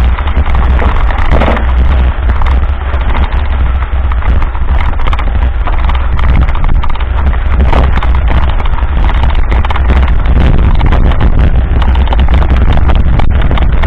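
Heavy, steady wind buffeting on the action camera's microphone during a mountain bike ride down a rough dirt road. Under it, a constant irregular clatter of knocks and rattles comes from the bike and camera mount jolting over the ruts.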